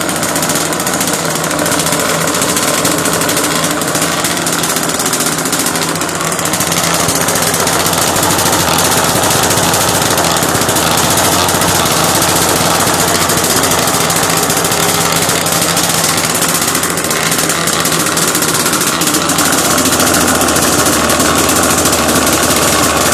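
Two-stroke gasoline engine of an RC gas boat running steadily out of the water on its stand, its pitch wavering slightly a few seconds in.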